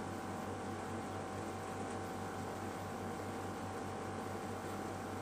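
Steady low electrical hum with an even hiss and a faint thin tone, the background noise of the recording with no other sound.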